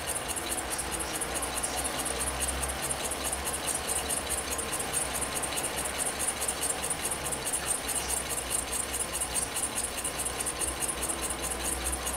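Model Stirling engine with a glass power cylinder and brass flywheel running steadily, its crank and linkage making a rapid, even ticking rattle.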